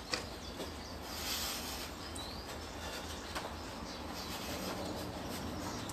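Steady outdoor background noise with a few faint bird chirps, and a few brief soft swishes and a light click as the arms move through blocks.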